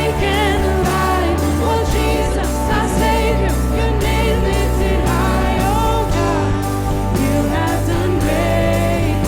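Live worship band music: a steady beat with cymbal strokes, sustained bass notes that shift about two and six seconds in, and a wavering melody line over the top.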